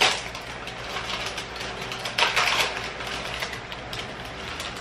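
Crinkling plastic-and-foil wrapper of a nori packet being torn open and unwrapped by hand, in irregular rustles, with a louder crackle at the start and another about two seconds in.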